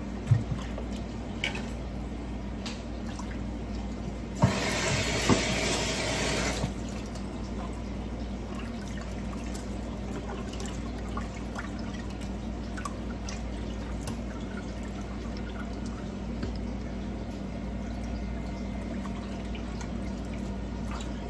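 Water running for about two seconds, starting about four seconds in, as chunks of raw beef are rinsed with lemon water, with a few knocks around it. The rest is quiet handling of wet meat pieces in a glass dish and a stainless-steel colander over a steady low hum.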